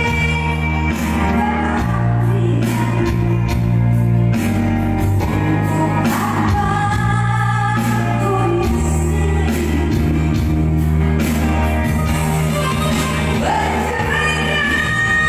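A woman singing in a high, piercing voice through a microphone and PA over backing music, holding a long high note near the end.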